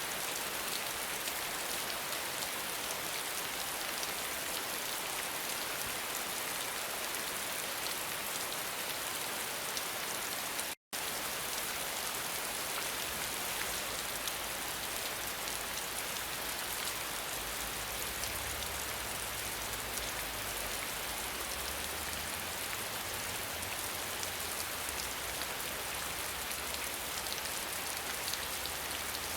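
Steady rain: an even hiss of countless drops falling. It cuts out for an instant about eleven seconds in, and after that a faint low rumble runs beneath it.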